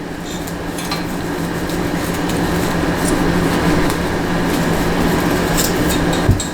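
Steady whirring of a small motor-driven blower or fan with a constant low hum, growing a little louder, then cutting off with a low thump about six seconds in.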